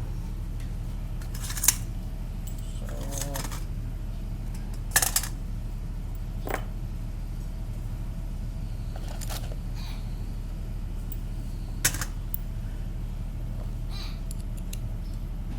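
Scattered sharp metallic clicks and clinks of alternator parts and hand tools being handled during reassembly, about seven over the stretch, one with a short ring. A steady low hum runs underneath.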